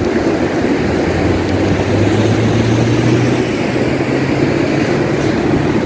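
Jet ski engine droning steadily offshore, its pitch lifting slightly about two seconds in, heard over wind and surf.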